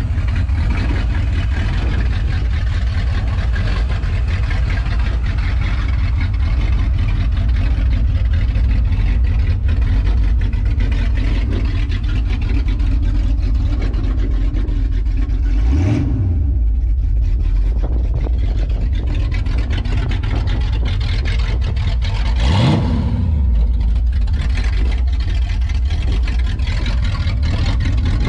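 Ford 302 Cleveland V8 idling with no exhaust fitted, running straight out of the pipes, with a heavy low note. It is blipped into a short rev about halfway through and again a few seconds later, rising and dropping back to idle each time.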